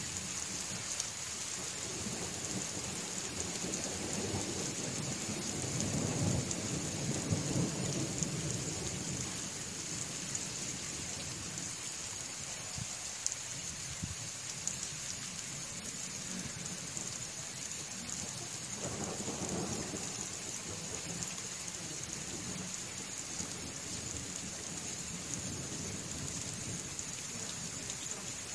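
Steady rain with rolling thunder. A low rumble swells about four seconds in and fades by about nine seconds, and a shorter rumble comes around nineteen seconds.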